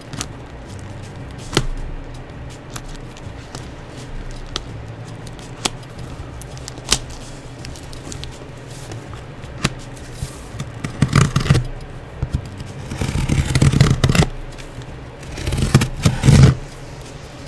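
Knife blade cutting and scraping through packing tape and plastic wrap on a cardboard box: scattered clicks and crackles, then three louder scraping runs in the second half.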